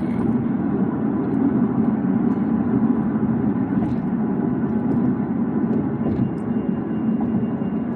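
Steady road and engine noise inside a car driving slowly. A faint high steady tone joins about six seconds in.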